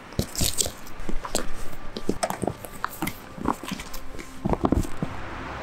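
Stiff waterproof roll-top dry bag being unbuckled and unrolled by hand: crinkling of the coated fabric with a quick string of sharp clicks. A steady hiss sets in near the end.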